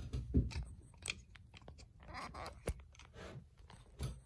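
Footsteps and clothing rustle as someone walks about, with scattered small clicks and a few soft low thumps.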